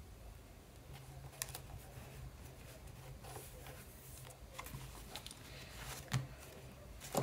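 Faint rustling and tapping of paper under hands as a paper cutout is pressed onto a notebook page, with a few soft knocks against the table, one about a second and a half in and a sharper one about six seconds in. A low steady hum lies underneath.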